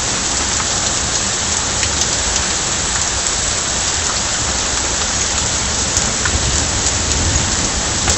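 Heavy rain pouring down onto a street covered in standing water: a steady, loud hiss of downpour with a few light ticks of drops close by.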